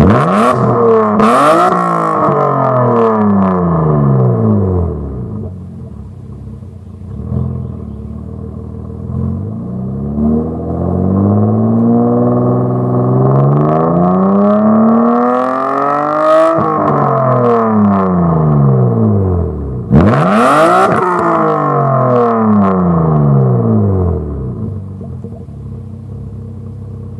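Mazda MX-6's V6 revved in free rev through a full 2.5-inch exhaust with a Magnaflow catalytic converter and Megan Racing muffler, heard at the tailpipe. A quick blip at the start falls back to idle, then a slow climb to a high rev about two thirds of the way in drops off sharply, another quick blip follows, and it settles back toward idle near the end.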